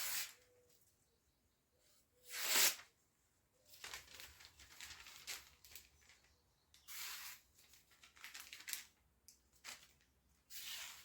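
Freshly sharpened naginata blade slicing through magazine paper, a series of short papery swishes and rustles, about six cuts, with the paper rustling between strokes.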